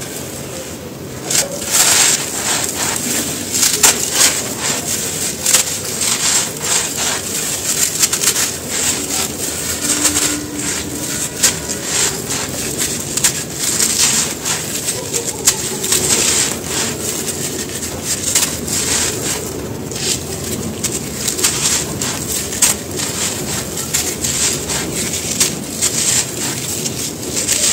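Dry, dusty cement shapes crushed and crumbled by hand: dense, irregular crackling crunches with crumbs and grit spilling. The crunching starts about a second and a half in and keeps on.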